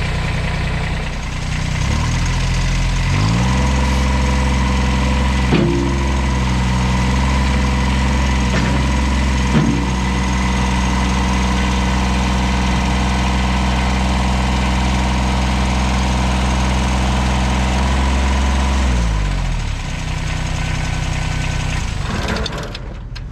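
Kubota BX2230 compact tractor's three-cylinder diesel engine running: it revs up from idle a few seconds in and holds a steady higher speed, the throttle raised to work the front loader that lifts the front end. Two sharp knocks come partway through. The engine drops back to idle and then stops near the end.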